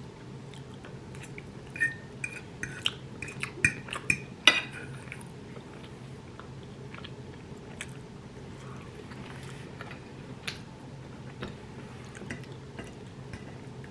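Eating from a plate: a quick run of sharp clicks and taps of a fork against a plate from about two seconds in, the loudest near four and a half seconds, then quieter chewing with a few scattered small clicks.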